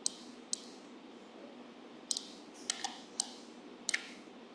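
Scattered clicks at a computer, keyboard keys and mouse buttons, about eight sharp clicks, some in quick pairs, over a faint steady background hiss.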